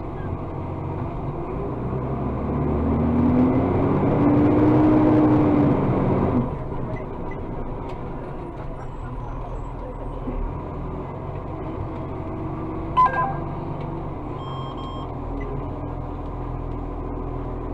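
Acco refuse truck's engine and hydraulics working the bin lifter and packer: the pitch rises and the sound swells for about four seconds, then drops back sharply to a steady run. A single sharp click comes about two-thirds of the way through. The hopper is close to full and the packer is struggling to take more.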